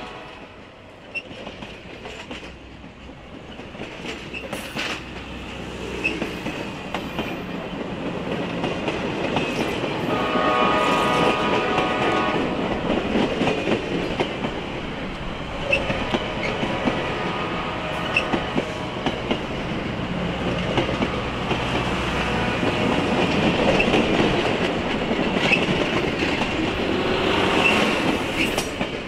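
Norfolk & Western 611's steam excursion train running by: rumble and rail noise that build over the first ten seconds or so and then hold, with wheels clicking over rail joints. A brief whistle blast sounds about ten seconds in.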